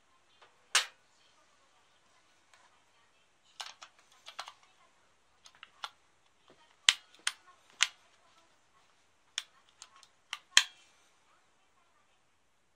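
Sharp plastic clicks and knocks of a cylindrical camera lithium battery being handled and pushed into the slot of a handheld plastic battery checker. About a dozen irregular clicks, the loudest a little under a second in and in the second half.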